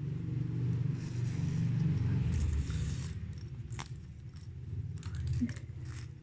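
Stiff sequin ribbon scraping and clicking as it is gathered and hand-stitched with a needle, over a low steady rumble.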